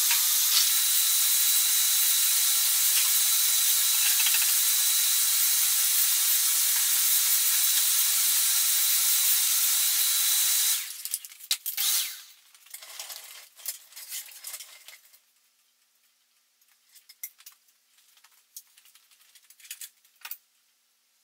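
Shop vacuum running steadily with a whining motor, switched off abruptly about eleven seconds in. Faint scattered knocks and clatter follow.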